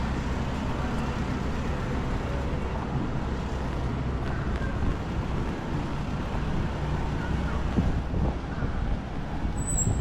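Road traffic in a city street, with vehicle engines running as a steady low rumble.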